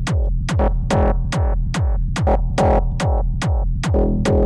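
Techno loop from a drum machine and synthesizer: a kick drum on every beat, about two a second, with 909-style closed hi-hats ticking between the kicks, under a repeating, pulsing synth line.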